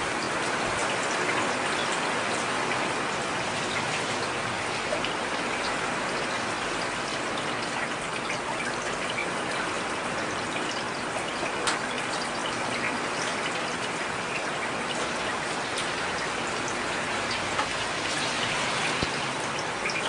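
Heavy rain falling steadily, a dense even hiss with occasional sharper ticks of single drops striking.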